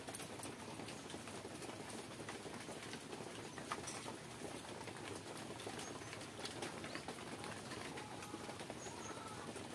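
Quiet hand-eating sounds: fingers squelching in watery fermented rice and picking at mashed brinjal on a steel plate, with small scattered clicks. A bird calls faintly near the end.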